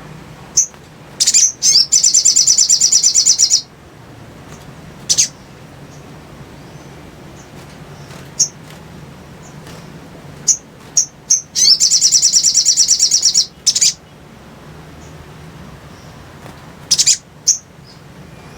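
A little spiderhunter (sogon) calls: scattered sharp single chip notes and two long, rapid chattering runs of high notes, each about two seconds, one early and one past the middle. A faint steady hum lies underneath.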